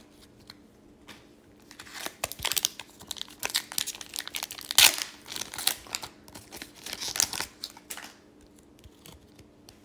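Foil wrapper of an Upper Deck hockey card pack being torn open and crinkled by hand. A run of sharp crackles starts about two seconds in, peaks about halfway through and dies away about eight seconds in.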